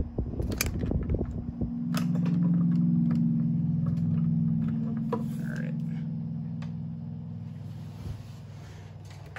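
1980s Galaxy 12-inch oscillating desk fan running on its low speed: a steady motor hum and rush of air that swells about two seconds in and then slowly fades. A few knocks and rumbles come in the first couple of seconds.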